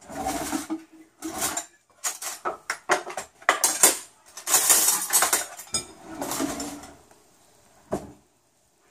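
Metal cutlery clattering and clinking in a kitchen drawer as a spoon is rummaged out, with one sharp knock near the end.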